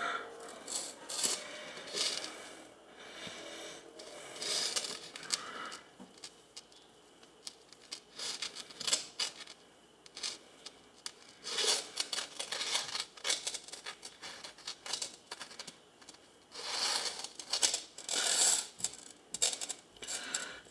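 A rubber spatula scraping and tapping as whipped frosting is scooped from its tub and spread across a cake layer: short, irregular clicks and scrapes.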